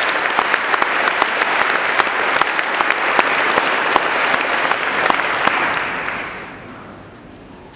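Audience applauding, many hands clapping together, fading away about six seconds in.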